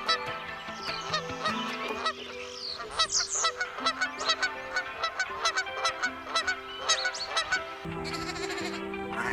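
Ducks quacking in quick, repeated calls over steady background music.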